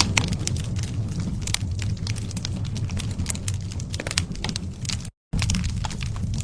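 Campfire burning: a steady low rumble with many sharp crackles and pops. It drops to dead silence for a moment about five seconds in.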